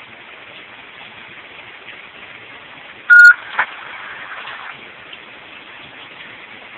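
A short, loud electronic beep at one steady pitch about three seconds in, over a faint steady hiss.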